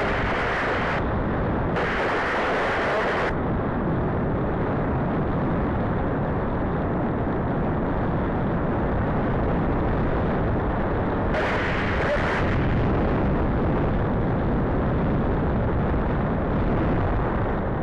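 Steady wind noise from airflow rushing over the microphone of a camera on a paraglider in flight, with a few brief hissier gusts near the start and about twelve seconds in.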